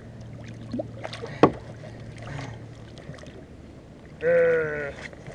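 Sharp knock of gear on a fishing kayak as a cod is swung aboard, about one and a half seconds in, over a low steady hum that stops about halfway through. Near the end a man's voice gives a short held exclamation.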